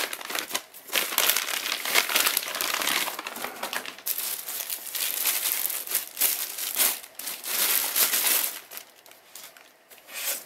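Plastic packaging bags crinkling and rustling as hands unwrap a lens from them, dying down near the end.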